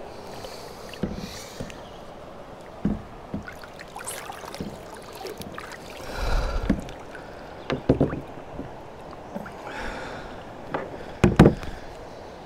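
Water splashing and dripping as an old fish lip-gripper full of sand and gravel is lifted out of a stream beside a plastic kayak, over a steady hiss of moving water. Scattered knocks against the kayak's plastic hull come and go, the loudest near the end as the tool is set down on the deck.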